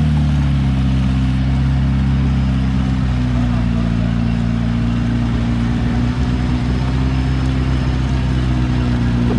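Off-road 4x4's engine running at steady revs, its pitch dipping slightly just after the start and then holding level.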